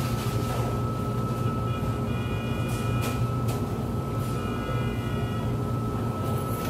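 Steady low mechanical hum of a restaurant's background equipment, with a faint steady whine above it. Two faint high tones, each about a second long, sound about two seconds in and again about four and a half seconds in.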